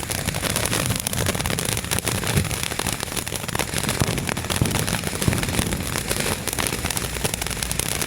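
Lit consumer firework spraying with a steady hiss and dense, rapid crackling.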